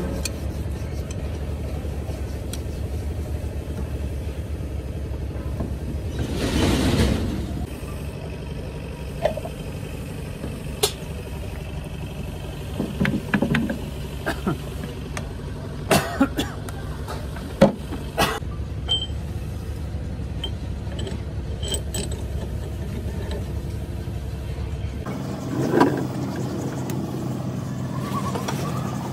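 Steady drone of an engine running nearby, with a brief rushing swell about a quarter of the way in. Scattered sharp metal clicks and clinks from engine parts being handled on a bare cylinder block, the drone thinning near the end.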